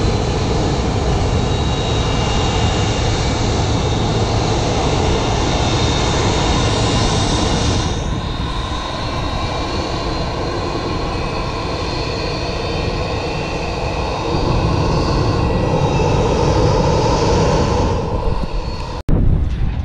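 McDonnell Douglas MD-88 jetliner's rear-mounted JT8D turbofans running at taxi power: a steady rumble with a faint high whine. It swells a little toward the end, then cuts out for an instant just before the end.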